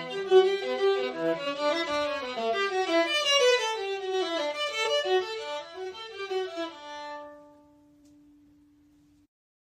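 Viola playing a bowed melody of quick changing notes; about seven seconds in the phrase ends on a held note that fades away, leaving a short silence.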